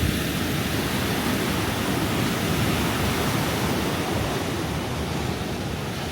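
Steady, even rushing of ocean surf breaking, with no distinct waves standing out.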